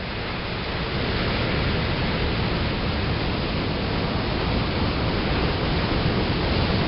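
Ocean surf breaking and washing over shoreline rocks: a steady rush of noise that swells over the first second or so and then holds.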